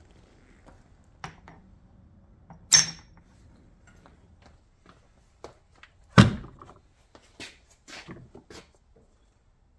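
Aluminium ingots cast from a melted intake manifold being set down and stacked. About three seconds in there is a sharp metallic clink with a short ring, a heavier knock about six seconds in, then a few lighter knocks.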